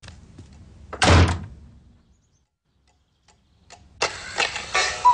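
A door slammed shut about a second in, then near silence. About four seconds in, music starts, and near the end a cuckoo clock calls its two falling notes.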